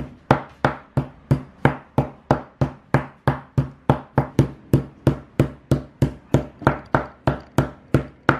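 Metal meat mallet pounding a thin slice of beef tenderloin on a wooden chopping board to tenderize and flatten it: a steady run of sharp knocks, about three to four a second.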